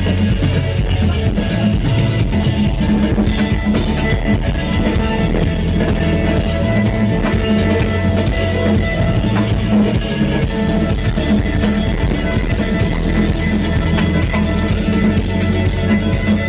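Live rock band playing loud and steady: drum kit with extra drums struck hard with sticks, over guitar and keyboard.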